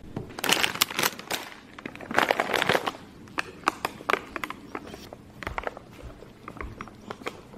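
Handling noise from a plastic cup of apple juice being picked up and moved about: a run of irregular clicks and knocks, with two short rustling stretches in the first three seconds.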